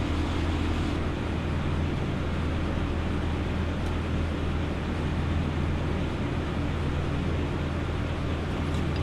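Greenhouse fans running: a steady low hum with an even rush of moving air.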